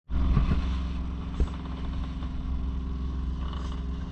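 A boat's engine running steadily with a low drone, with one short knock about one and a half seconds in.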